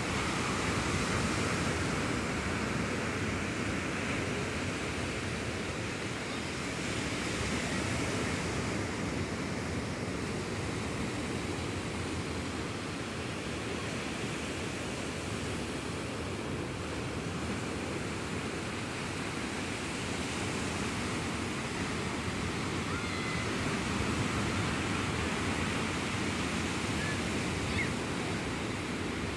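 Sea surf washing onto the shore: a steady rush of waves that slowly swells and eases in loudness.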